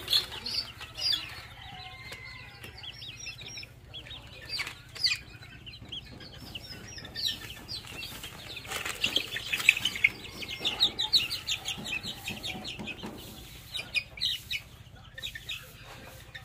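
Young ornamental chicks, a little over 20 days old, peeping in rapid runs of short high chirps that are thickest around the middle, while the flock is handled for antibody injections. A few short scuffs are mixed in.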